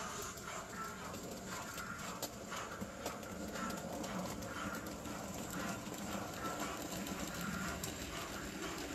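00 gauge model train running on the layout, with a rhythmic clicking of short ticks.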